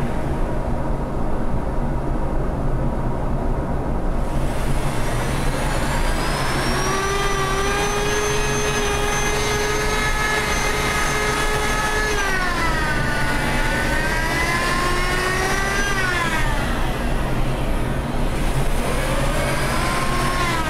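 An electric drill with a sanding disc whines while sanding the blade of a wooden spatula. Its pitch holds steady for several seconds, then dips and climbs again as the trigger or load changes. It stops about three quarters of the way in and starts again, rising, near the end. A steady low hum from a running dust collector lies under it throughout.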